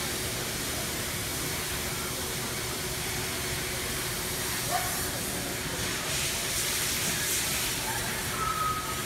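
Steady background hiss of a busy dog-show venue, with a faint constant hum and scattered faint distant voices.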